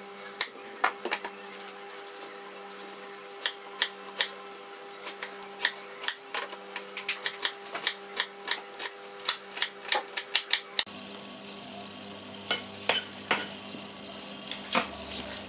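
Kitchen knife chopping an onion on a wooden cutting board: irregular sharp taps of the blade on the board, several a second, over a steady low hum.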